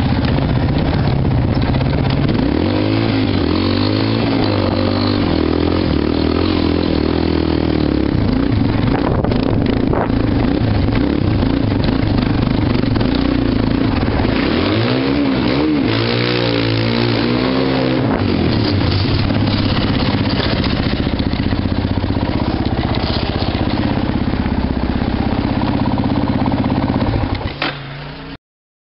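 Quad (ATV) engine running near idle, with its pitch wavering up and down as it is blipped, most clearly early on and again past the middle. The sound dies away and cuts off suddenly near the end.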